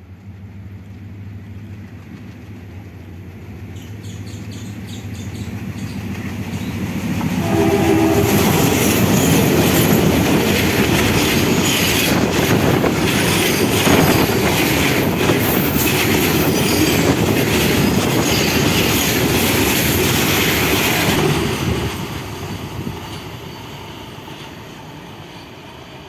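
Twin ALCO WDG3A diesel locomotives approaching, their engines chugging louder, with the horn sounding about seven seconds in. The locomotives and a long rake of covered freight wagons then rattle past at speed, wheels clacking over the rail joints, before the sound fades as the train runs away.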